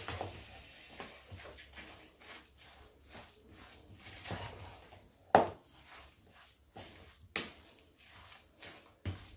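A spoon stirring a thick vermicelli, vegetable and béchamel mixture in a ceramic bowl: soft, irregular scrapes and knocks, with sharper knocks about five and seven seconds in.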